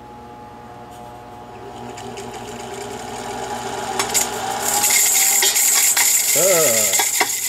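Airway Model 55A vacuum cleaner motor spinning up on a Variac. It grows steadily louder over the first five seconds into a steady high whine and hiss. A metallic clicking rattle runs through it, from loose dirt still inside the motor.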